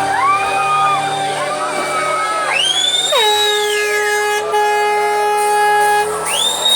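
Loud horn-like tones in intro music, sweeping up in pitch, holding, then sliding back down, several times over held sustained notes.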